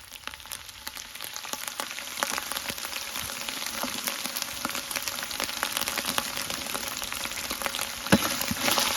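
Curry leaves crackling and sizzling in hot oil with fennel seeds and ginger-garlic paste, a dense spluttering that builds over the first couple of seconds. A single knock sounds near the end.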